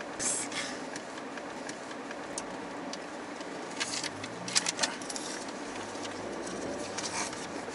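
Steady car-cabin road noise, with a few short crisp rustles and clicks from a wad of paper banknotes being handled and fanned, the clearest about four to five seconds in.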